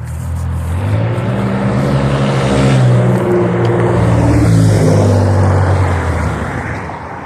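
A motor vehicle passing close by: its engine note and tyre noise swell to a peak a few seconds in, then fade as it moves away.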